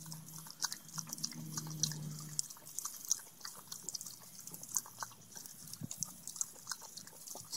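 Cairn terrier drinking from a thin trickle running off an outdoor spigot: quick, irregular wet laps and snaps of the jaws at the stream, with water dripping.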